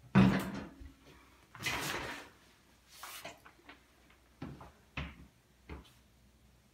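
A shower curtain drawn back along its rod, the rings scraping in two swishes after a sharp knock at the start, followed by a few light taps and knocks.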